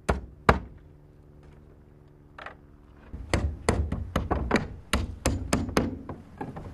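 Hammer driving nails into larch-wood roof shingles: two strikes near the start, a pause of about two seconds, then a quick run of strikes, roughly three a second.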